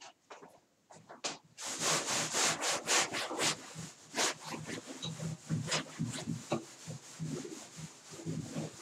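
Chalkboard being wiped with a duster: quick back-and-forth rubbing strokes, loudest for a couple of seconds near the start, then lighter wiping.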